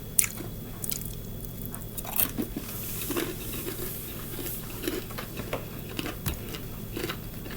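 Close-up chewing and biting of crispy fried chicken gizzards, with irregular crunches and wet mouth sounds.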